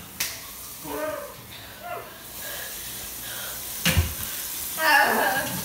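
Kitchen tap running into a sink with a steady hiss, while children gasp and call out; a sharp click just after the start and a loud knock about four seconds in.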